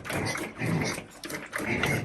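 Farm animal making several short, low calls.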